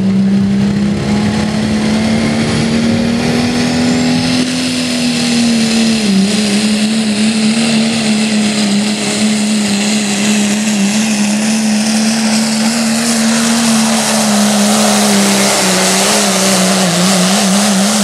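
Modified diesel pickup engine running flat out under heavy load while dragging a weight-transfer pulling sled: a steady, loud drone that dips slightly about six seconds in, with a hiss that grows brighter over the second half of the pull.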